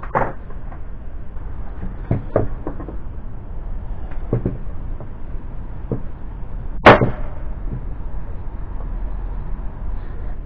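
An electric nail gun fires once into MDF, a sharp crack about seven seconds in and the loudest sound. Before it come several lighter knocks of wood being handled on the workbench.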